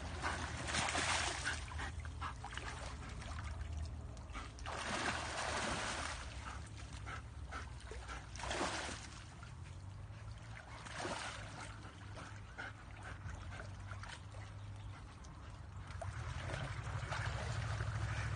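Water splashing in short noisy bursts a few seconds apart, over a steady low rumble.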